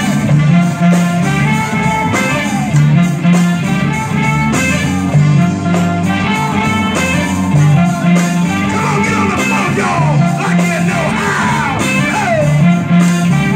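Live band playing, with saxophone, electric guitar, keyboard, congas and drum kit, over a steady bass line. Gliding high notes come in past the middle.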